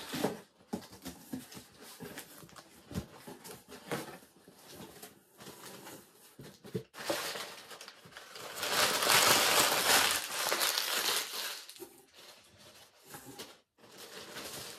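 Cardboard box being opened: a few light knocks and rustles as the lid is lifted, then crumpled brown kraft packing paper crinkling loudly for about three seconds as it is pulled out of the box.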